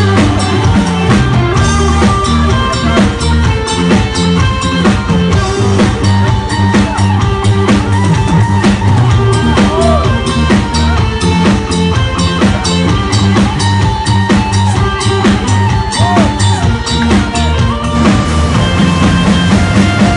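Background music with a steady drum-kit beat and bass.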